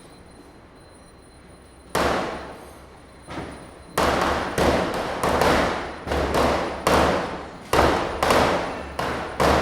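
Diwali firecrackers bursting: a single loud bang about two seconds in, a smaller pop, then a quick run of loud bangs roughly every half second, each echoing away.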